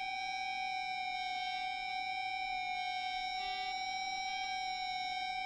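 Electric guitar played with an EBow, heard as an isolated multitrack: one high note held on and on at a steady level, with no pick attack. It sounds unsettling.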